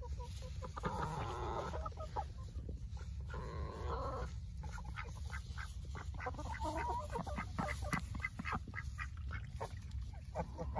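Geese and ducks calling: a couple of longer hoarse honks in the first few seconds, then a run of short quacks and calls in the second half.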